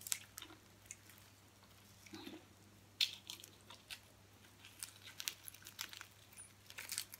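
Faint crunching and crackling of crispy fried pig-head skin being torn off by hand and chewed: scattered sharp snaps, the loudest about three seconds in.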